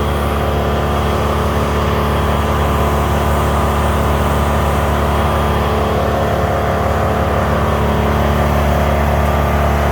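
An engine running steadily at an even pitch, with no revving.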